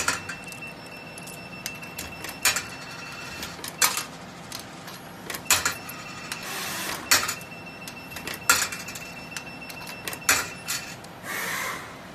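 Coins dropped one at a time into a small vending machine's coin mechanism: about seven sharp metallic clinks, roughly one every one and a half seconds, over a faint steady high whine. Near the end a short mechanical whir starts.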